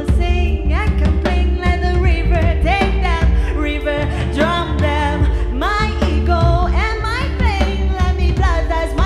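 A band playing live with a lead singer over steady bass and drums.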